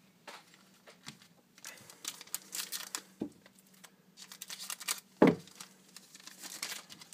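Foil wrapper of a hockey card pack crinkling as it is handled and cut open with scissors, in several short runs. A single dull thump about five seconds in is the loudest sound.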